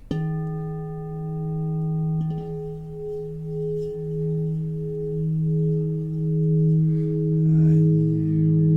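Titanium alchemy crystal singing bowl struck once and left ringing with several steady tones, one of them pulsing slowly. A second, lower tone comes in near the end.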